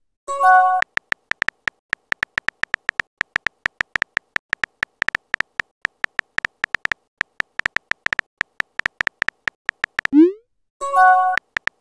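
Texting-app sound effects: a short multi-tone message chime, then a fast run of identical keyboard tap clicks as a message is typed. About ten seconds in, a quick rising swoop marks the message being sent, and another short chime follows near the end.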